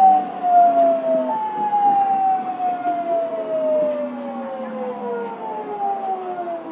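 Fukuoka City Subway 2000 series train's inverter and traction motors whining from inside the car as the train slows: several tones fall steadily in pitch, with a sudden jump up a little over a second in.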